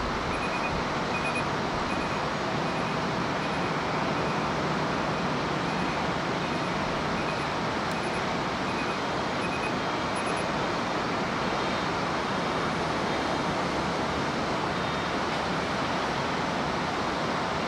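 McDonnell Douglas MD-11F freighter's three jet engines at takeoff power, heard from afar as a steady, even jet noise with a hiss as the trijet begins its takeoff roll. Faint short high beeps repeat about twice a second during the first ten seconds.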